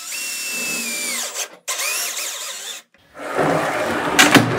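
Cordless drill/driver driving screws into a steel drawer slide in two short bursts: a whining motor whose pitch drops at the end of the first burst and rises in the second. Then a louder, rougher rattling noise with two sharp clicks near the end.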